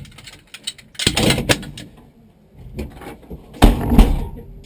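Clattering and handling noises inside a stationary rally car's stripped cabin, then two heavy thumps about half a second apart near the end.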